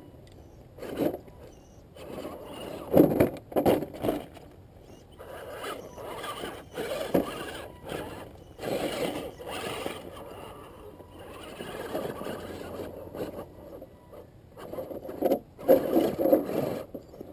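Axial SCX10 Honcho electric 1/10-scale RC rock crawler clawing over rocks: its motor and gears whir in uneven bursts of throttle, with tyres scraping and stones clattering, loudest about three seconds in and again near the end.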